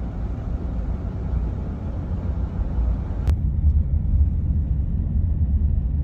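Steady low road and engine rumble heard inside a minivan's cabin while driving, with a single sharp click about three seconds in.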